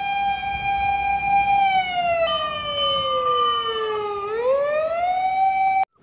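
Fire engine siren wailing: a held high tone slides down in pitch and climbs back up again near the end, with a second higher tone sounding for a while in the middle, over a low rumble of engine and traffic. It cuts off suddenly just before the end.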